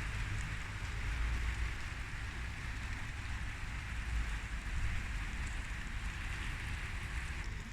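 Steady rain falling, an even hiss, with a low unsteady rumble underneath.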